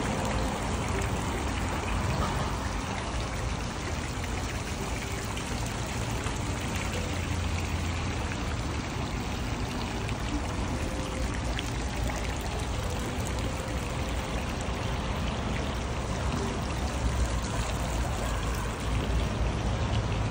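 Small fountain jets bubbling and splashing steadily into a shallow pool.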